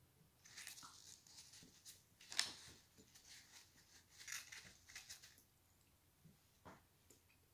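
Faint crackling and clicking from chocolates being eaten and handled: mouth and chewing noises mixed with the rustle of sweets on the tray. It comes in scattered spurts over the first five seconds, with one sharper click about two and a half seconds in, then near silence.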